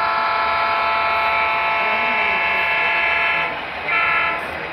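Model diesel locomotive's multi-chime horn from its sound decoder: one long blast that breaks off about three and a half seconds in, then one short blast.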